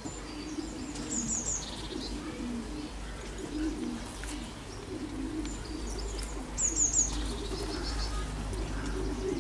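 Pigeons cooing repeatedly, with a small bird giving a quick run of high chirps about a second in and again near seven seconds.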